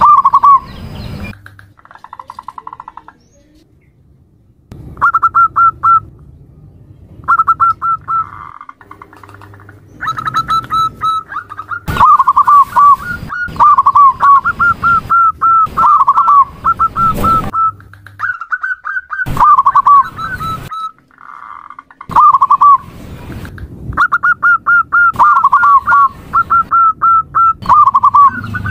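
Female zebra dove (perkutut) calling: runs of quick, short cooing notes repeated in series, broken by brief pauses, with a longer quiet gap early on.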